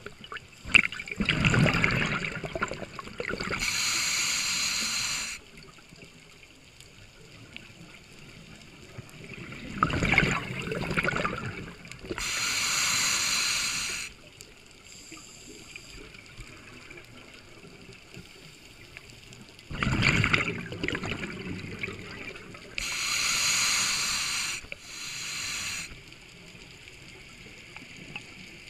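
Scuba diver breathing through a regulator underwater, three breaths about ten seconds apart. Each breath is a burst of bubbling exhaust followed by the hiss of the demand valve on the inhale.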